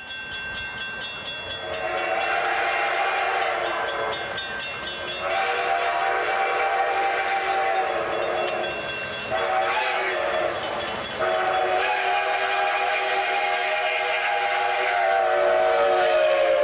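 Steam locomotive chime whistle sounding four long blasts, several notes held together as a chord, with short breaks between them.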